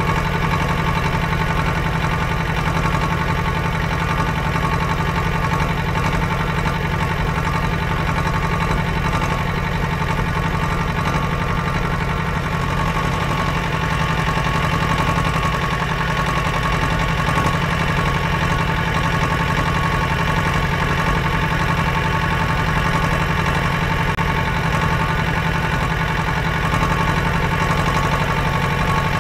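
Engine running steadily at a constant speed: a low drone with a steady higher hum over it, unchanging throughout.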